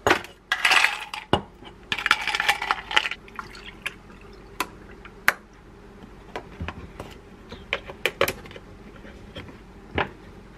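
Milk poured from a carton into a glass of ice, with sharp clinks of ice against the glass. The pouring comes in the first three seconds, followed by scattered single clinks and taps.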